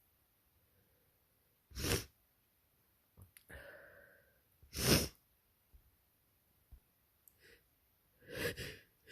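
A person's allergic sneezing fit: two sharp sneezes about three seconds apart, with quieter breaths between them and a drawn-in breath near the end.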